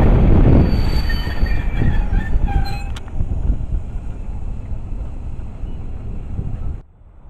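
Passenger train passing on the track, its wheels rumbling with thin, high wheel squeals during the first three seconds. The rumble then dies down and cuts off suddenly near the end.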